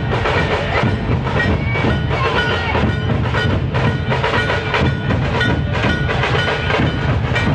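Dhol-tasha ensemble drumming: large barrel-shaped dhol drums and sharp tasha kettle drums beaten in a loud, rapid, unbroken rhythm.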